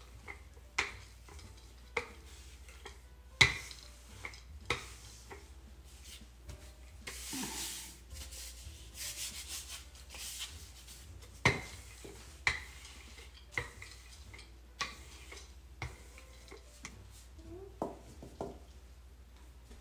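Wooden rolling pin rolling out shortbread dough on a floured pastry mat: irregular knocks and clicks about once a second, with stretches of rubbing swish around the middle.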